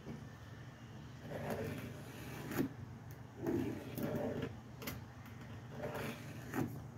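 Faint handling sounds of marking out a 2x4: a pen drawing along a steel ruler on the wood, with a few light clicks, over a low steady hum.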